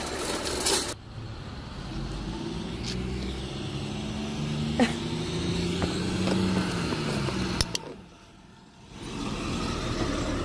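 A motor vehicle's engine running as it drives past close by, its pitch gently rising and then falling before it fades about eight seconds in, with a few sharp clicks along the way.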